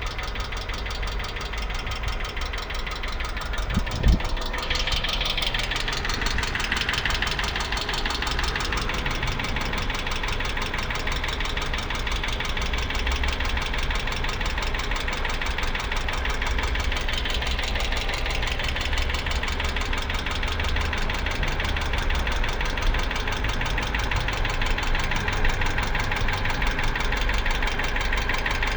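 2008 Hyundai Accent engine running with a fast, even knock throughout, the engine knock that the owner is recording as a fault. A single sharp thump about four seconds in.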